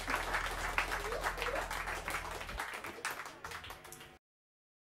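Audience applauding at the end of a live band's song, the clapping thinning out, over a steady low hum that stops about two and a half seconds in. The sound cuts off abruptly a little after four seconds.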